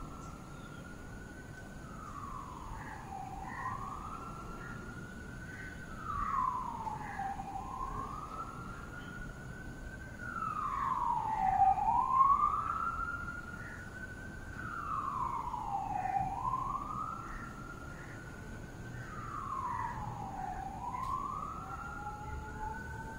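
Emergency vehicle siren wailing, its tone slowly rising and falling about once every four seconds. It grows louder toward the middle and fades again, and a second, lower siren tone joins near the end.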